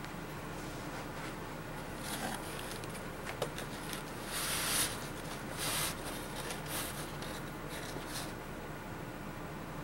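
A cloth wiping down a rifle musket in short strokes: a series of soft swishing rubs, the loudest about halfway through, over a low steady room hum.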